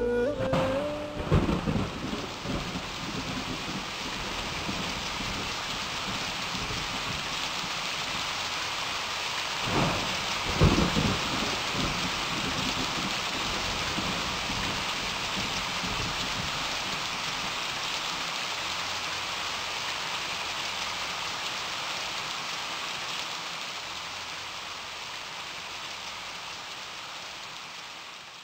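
Steady heavy rain falling and splashing on surfaces, with low rolls of thunder about a second in and again around ten seconds in. It fades away at the end.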